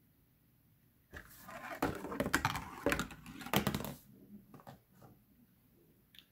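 A marble rolling down a homemade zig-zag of cardboard ramps taped inside a box: a rumbling roll of about two and a half seconds, with sharp knocks as it drops from ramp to ramp, stopping about four seconds in. A few light taps follow near the end.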